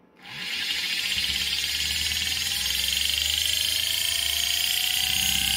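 Homemade 3D-printed three-phase brushless DC motor starting up and spinning up: an electric whine that climbs slowly and steadily in pitch as it gains speed, over a steady high-pitched tone and a low hum.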